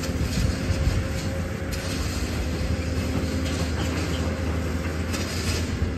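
Construction-site machinery running: a steady low engine-like drone with a held hum. Now and then there are short clicks and scrapes from the work.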